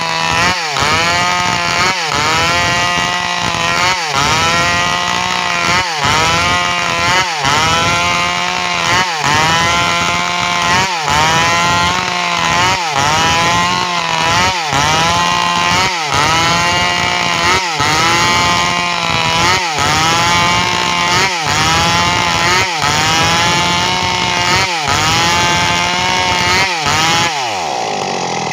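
Stihl MS 382 two-stroke chainsaw running at high revs while ripping lengthwise through a waru log, its pitch dipping briefly and climbing back about once a second. Near the end the revs fall away toward idle.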